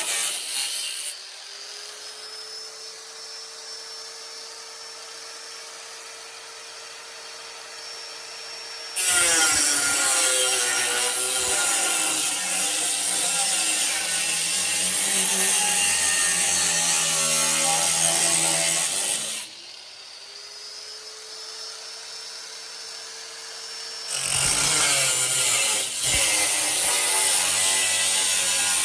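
Handheld power tool cutting sheet steel in three loud stretches. Between cuts the motor runs free with a steady whine that climbs back up to speed each time the cut lets off.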